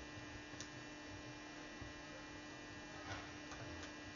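Faint, steady electrical hum, with a couple of soft ticks about half a second and three seconds in.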